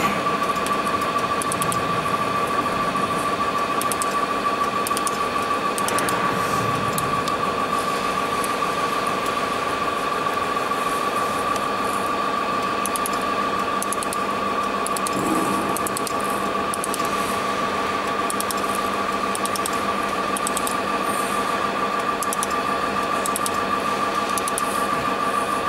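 BHJ 300W laser welding machine running: a steady mechanical drone with a high steady whine, with faint irregular ticks as it spot-welds a stainless steel channel letter seam.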